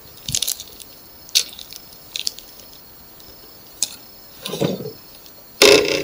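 Footsteps and movement through dry grass: scattered crunches and rustles, with two fuller rustles in the last second and a half.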